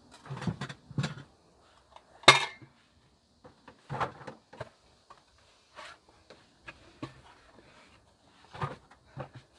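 Rummaging through gear in a plastic storage barrel: irregular knocks, rustles and clatter of items bumping each other and the barrel, with one sharp loud clack about two seconds in.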